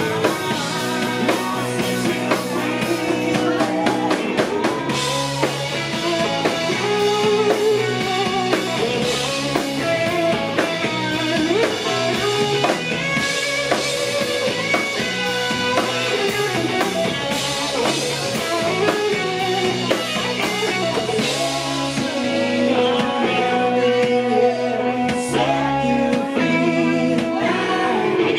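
Live rock band playing an upbeat country-rock song on electric guitars, bass guitar and drum kit, with a man singing lead over it.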